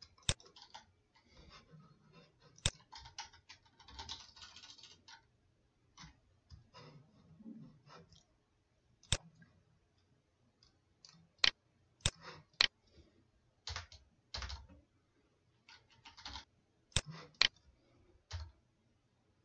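Typing on a computer keyboard: irregular keystrokes in short runs, with a few sharper, louder key clicks scattered through.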